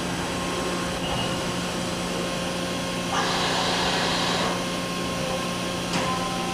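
Matsuura horizontal machining center running with a steady electrical hum. About three seconds in, a hiss like an air blast lasts over a second, and there are a couple of sharp mechanical clicks near the end.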